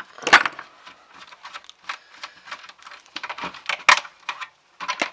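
Irregular clicks and light clatter of small scrap pieces (electrical wire, plugs and wire nuts) being handled and dropped. Two louder knocks come about a third of a second in and just before four seconds.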